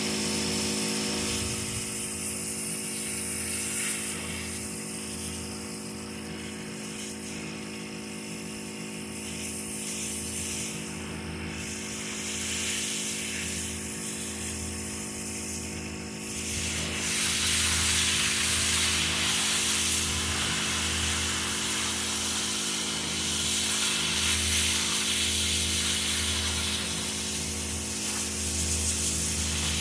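Pressure washer running steadily, its motor humming under the hiss of the water spray. The spray hiss gets louder a little past halfway.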